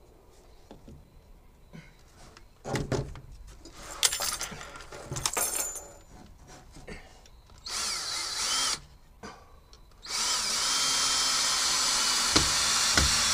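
Cordless drill working into a log wall, first in short bursts, then running steadily from about ten seconds in.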